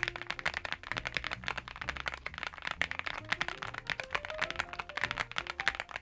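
Fast, continuous typing on a NuPhy Gem80 80% mechanical keyboard with PBT keycaps: a dense stream of key clacks, over faint background music.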